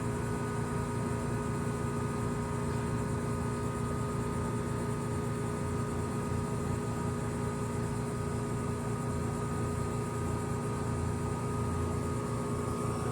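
Goodman GSZ14 2-ton heat pump's outdoor unit running steadily: a constant compressor hum with several steady tones under the even noise of the condenser fan.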